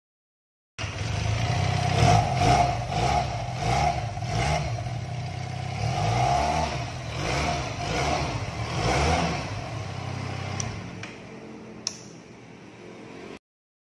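Benelli TNT249S two-cylinder exhaust being revved in a string of quick throttle blips, each rising and falling. Near the end it drops back to a lower, steady idle, and there is a single sharp click.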